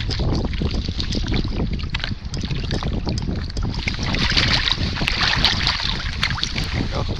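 Wind buffeting the microphone in a steady low rumble, with small splashes and clicks as a small fish is pulled splashing from the water on a fishing line.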